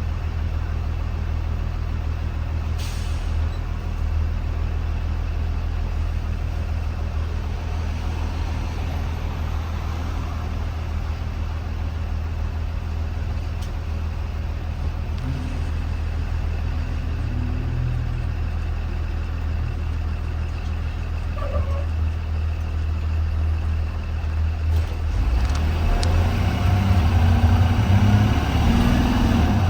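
Blue Bird Vision school bus engine running with a steady low drone, heard from the front of the bus, with a short hiss about three seconds in. It grows louder for the last few seconds as the engine works harder.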